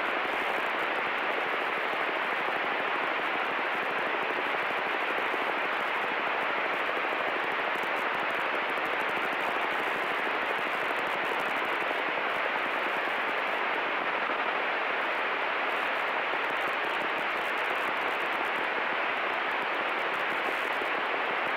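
Steady, even hiss on the cockpit headset intercom of a 1938 Fairchild 24-K through the landing, cut off above and below like a radio channel, with no rise or fall.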